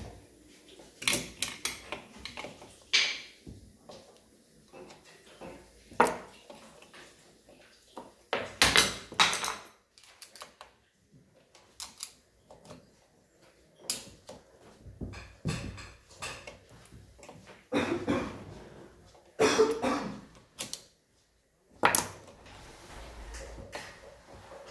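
Metal motorcycle engine parts clinking and knocking as the gears, shafts and bearings of a Mondial Drift 250 crankcase are handled and fitted by hand. The sound is irregular clicks and short clatters, with quiet gaps between them.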